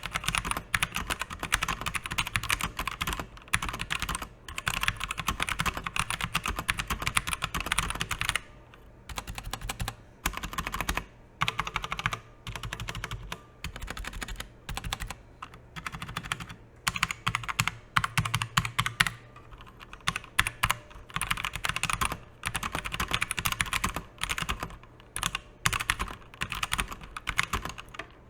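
Typing on a Rottay full-size mechanical keyboard with Outemu Brown tactile switches: rapid runs of key clacks in bursts, separated by short pauses.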